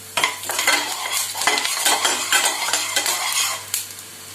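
A spoon stirring and scraping whole black peppercorns and coriander seeds roasting in a pan with a little sesame oil. It makes a busy rattle of clicks over a light sizzle and dies down near the end.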